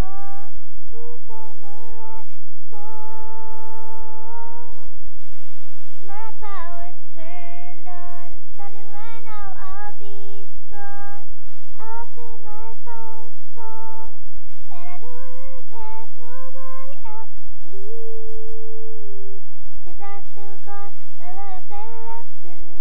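A girl singing solo into a handheld microphone with no accompaniment, moving between notes and holding several of them long.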